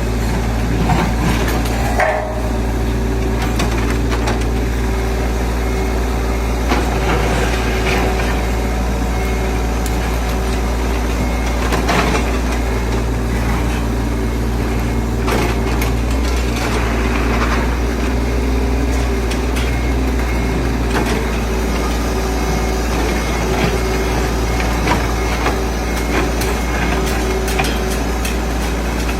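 Heavy road-construction machinery engine running at a steady idle, with scattered knocks and clatters of work going on.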